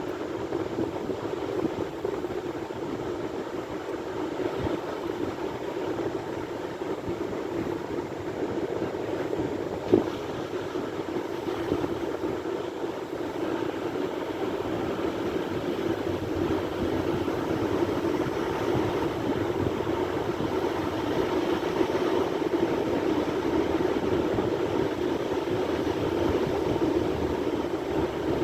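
Sea waves: a steady wash of surf that swells slowly, with one sharp click about ten seconds in.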